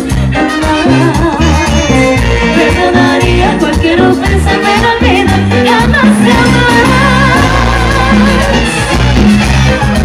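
Live Latin dance band playing loud and without a break: a woman singing the lead over congas, a drum kit and bass.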